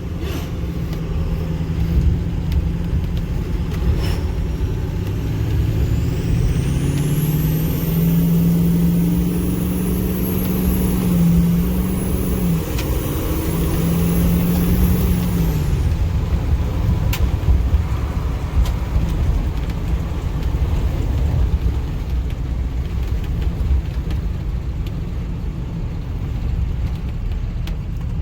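Ford King Ranch pickup truck driving, its engine rumbling steadily. From about six seconds in, the engine note rises as the truck accelerates, with a high whine climbing alongside it; both level off and drop away about sixteen seconds in.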